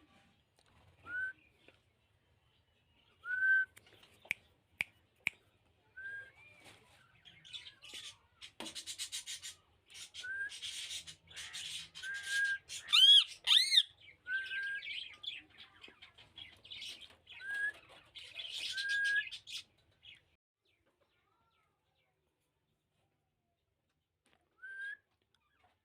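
Rose-ringed parakeet giving short rising whistled chirps every second or two, with a few sharp clicks about four to five seconds in. Midway it breaks into a stretch of harsh chattering with two loud squawks, the loudest sounds, then falls quiet before one more chirp near the end.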